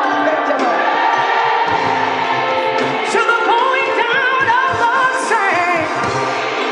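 Gospel worship music with many voices singing over long held chords; from about three seconds in, one voice rises above them in wavering runs that slide up and down in pitch.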